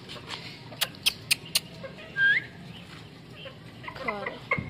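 Chickens in a wire cage calling as fresh green fodder is pushed in: a short rising chirp about two seconds in and a falling squawk near the end. Before that come a few sharp clicks.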